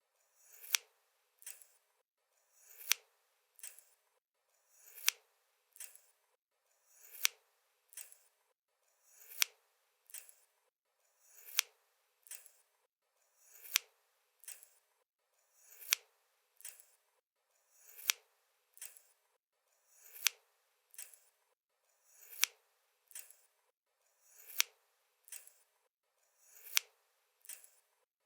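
Scissors closing with a sharp snip about every two seconds, each snip followed under a second later by a softer click, in a slow, even rhythm.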